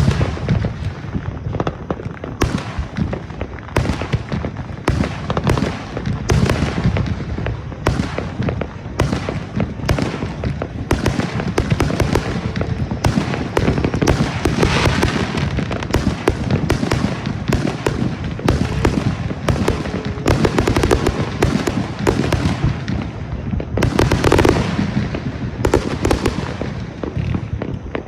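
Fireworks going off in a dense, unbroken barrage: many bangs and crackles every second, thickest about halfway through and again near the end.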